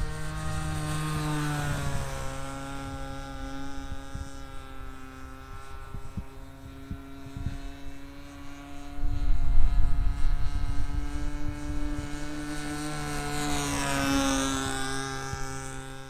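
Small engine of a radio-controlled model airplane running steadily in flight, its note dipping slightly about two seconds in and swinging in pitch near the end as the plane passes. Wind buffets the microphone as a loud low rumble for a couple of seconds past the middle.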